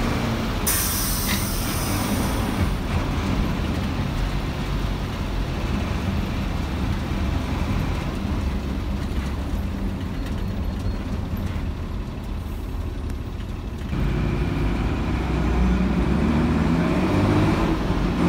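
Bus diesel engine, a Mercedes-Benz OM 366 six-cylinder, running steadily, with a sharp air hiss about a second in lasting about two seconds, like an air brake releasing. About fourteen seconds in the engine grows louder and its pitch rises as it pulls.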